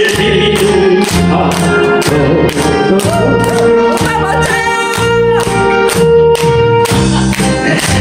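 A man sings a Korean song into a handheld microphone over an amplified karaoke backing track with a steady beat of about two strokes a second.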